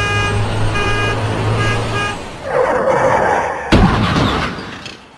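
Vehicle horn honking, one long blast then several short ones, over a low engine rumble; then a rush of noise and a sudden loud crash about three and a half seconds in that dies away.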